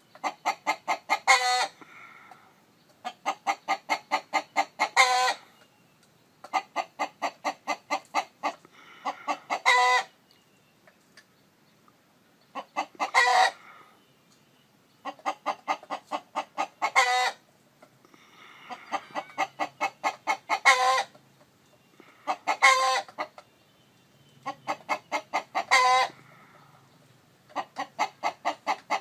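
Chicken cackling: about eight runs of quick clucks, each ending in a longer, louder squawk, repeated every few seconds, with softer clucking between the runs.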